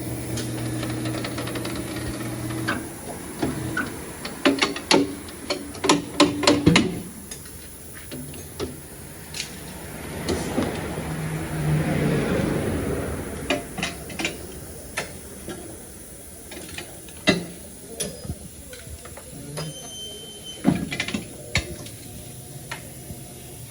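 Tyre-shop work: scattered metal clanks and knocks, a steady machine hum in the first two seconds, and a rushing hiss that swells and fades around the middle.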